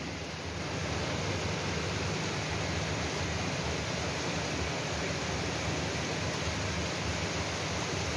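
Heavy rain pouring down, a steady, even hiss without breaks.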